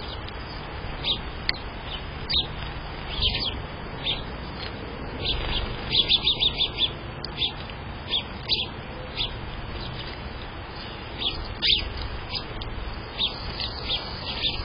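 House sparrows chirping: short, separate high chirps throughout, with a quick run of chirps about six seconds in.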